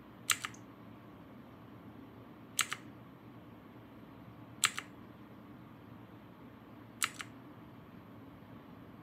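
Mechanical keyboard with clicky Otemu blue switches: four single keystrokes about two seconds apart, each a sharp double click of press and release, cycling through the backlight modes with Fn plus Insert. A faint steady hum lies under them.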